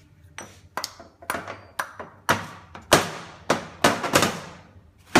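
Metal Hydramatic gearbox parts being handled and set down on a workbench: about a dozen irregular sharp clanks, each ringing briefly, loudest around the middle.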